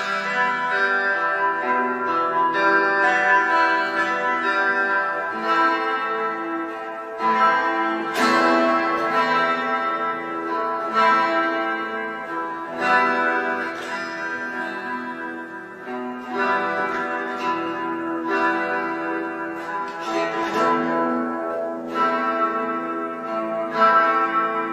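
Clean electric guitar played slowly by finger: a melody of plucked notes ringing out, with a chord struck every few seconds.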